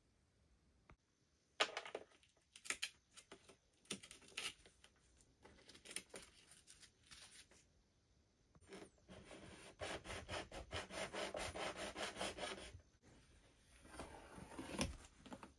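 Faint knocks from handling the plastic battery cases, then a utility knife blade sawing in quick back-and-forth strokes along the seam of a LiFePO4 battery's plastic lid, with a few more scrapes near the end.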